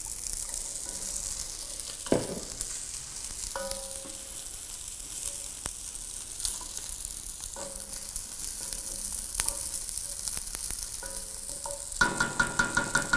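Vermicelli and whole spices toasting in hot oil in an enamelled cast-iron pot, sizzling steadily as a wooden spoon stirs and scrapes through them, the noodles turning golden. Near the end the stirring gets brisker, a quick run of spoon strokes against the pot.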